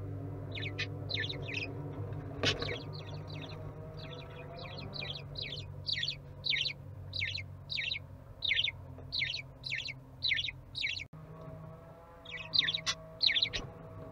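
Budgerigars chirping in a regular series of short, high chirps, about two a second, over a steady low hum; the chirping breaks off briefly near the end and then resumes.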